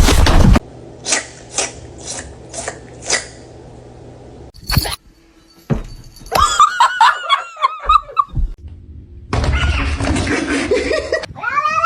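A string of short, unrelated sounds from quick clips: five soft, evenly spaced rasps, a sharp click, and a run of short rising-and-falling cries. Near the end a cat begins a drawn-out yowl.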